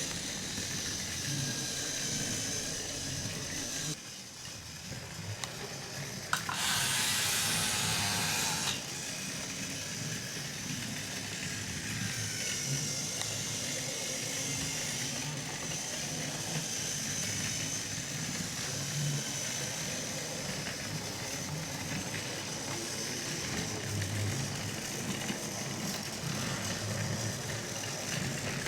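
Battery-powered TrackMaster toy train motor whirring steadily as the engine runs along plastic track. About six seconds in, a louder hiss cuts in for about two seconds.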